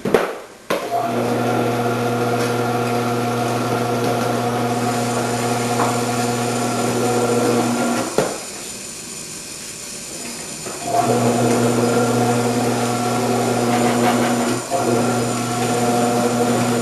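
Omcan HLC 300 commercial vegetable cutter's motor running with a steady hum while grating cheddar cheese; it stops about eight seconds in and starts again about three seconds later.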